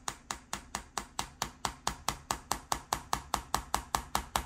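Small claw hammer tapping nails into a rolled cardboard tower, with quick, even, light strikes at about four a second.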